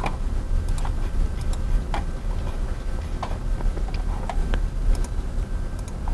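Irregular clicks of a computer mouse and keyboard as web pages are browsed, over a steady low hum.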